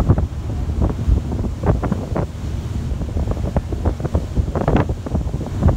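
Wind buffeting a phone's microphone on the open deck of a moving boat: a loud, gusty rumble that surges irregularly.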